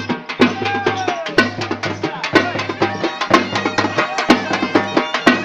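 Halage frame drums played in a fast folk rhythm, with a heavy stroke about once a second and quicker strokes between, and steady held tones over the drumming.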